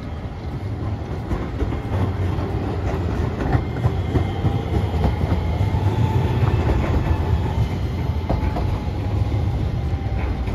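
Hiroshima Electric Railway Green Mover Max articulated low-floor tram passing on street track. A deep rumble grows to its loudest about midway and eases off, with scattered clicks from the wheels over the rails and a faint whine.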